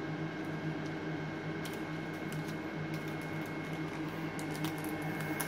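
Steady hum of running equipment, with a few faint light clicks from handling small parts.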